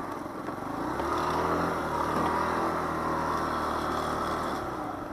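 Daelim Witty 100 scooter engine running as the scooter rides along, the note picking up about a second in and easing off near the end.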